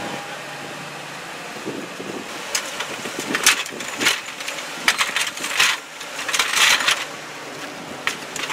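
Metal clanks, knocks and scrapes of a steel snow plow frame and its mounting hardware being handled and worked into place on a truck's front mount, in an irregular run through the middle.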